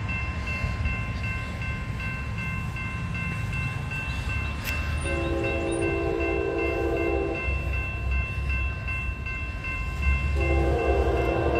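Railroad crossing bell ringing steadily while a Norfolk Southern freight locomotive's horn sounds two long blasts, the first about five seconds in and the second starting near the end, over a low rumble.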